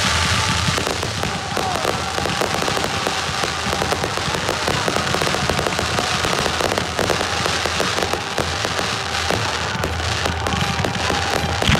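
Fireworks going off in a dense, continuous crackle of many small rapid pops, from spark-spraying ground fountains and crackling aerial effects.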